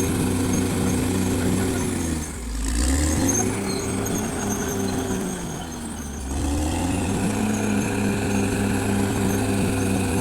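Caterpillar D6R XL bulldozer's diesel engine running hard and steady, its pitch sagging and recovering twice, about two seconds in and again around six seconds in.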